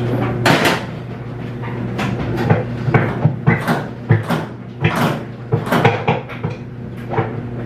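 Irregular knocks and clunks from a washing machine agitator being worked and pulled loose from its shaft, about a dozen over several seconds. A steady low hum runs underneath.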